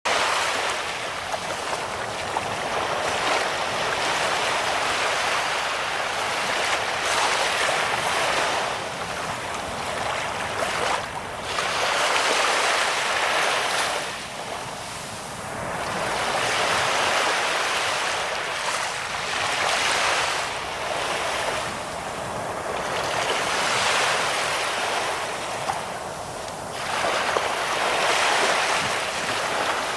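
Ocean surf: waves breaking and washing in, the rush of water swelling and easing every few seconds.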